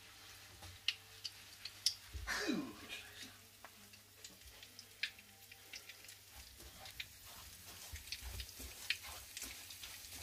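Soft clicks and taps of hands and a fork against glass bowls while parasol mushroom caps are breaded in flour, beaten egg and breadcrumbs, over a faint sizzle of frying oil. One short falling sound about two and a half seconds in is the loudest thing.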